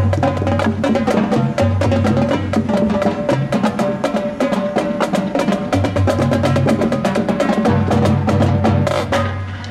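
Marching drumline playing a fast, dense passage: rapid snare and tenor strokes over pitched bass drums that move between notes. The playing stops abruptly near the end.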